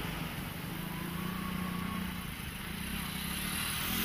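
A motor engine running steadily, a low hum with an even background hiss.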